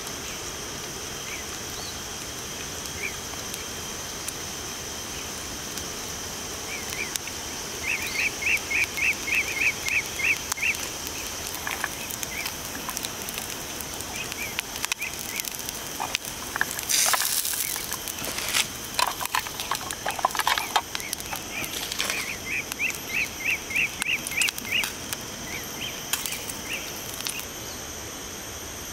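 Outdoor nature ambience: a steady high insect drone with runs of quick, high repeated chirps, two longer runs of a few seconds each. About halfway through, a brief rustling burst is followed by a few light clicks.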